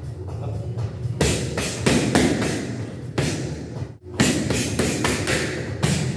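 Boxing gloves smacking against focus mitts during a punching drill: a string of sharp slaps in quick bunches of two or three, with a short gap about four seconds in.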